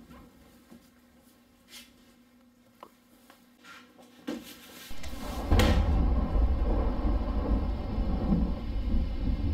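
Faint scattered taps and rustles, then a sharp knock about five and a half seconds in as a loud, deep rumble sets in and carries on.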